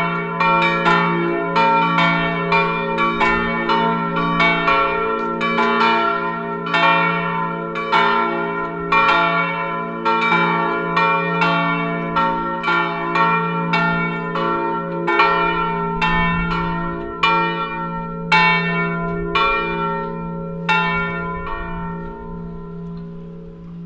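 Three swinging bronze church bells, cast by Felczyński in 1988 and tuned to F, B-flat and D, ringing together in overlapping strikes over a steady hum. The strikes thin out and stop about three-quarters of the way through as the bells come to rest, leaving their hum to die away.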